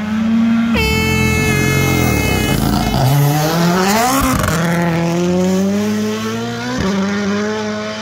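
Toyota GR Yaris Rally1 rally car's engine at full attack. About a second in the note jumps high and falls away as the car slows. It then revs hard as it accelerates past, the pitch climbing, dropping sharply at a gear change about four seconds in, and climbing again.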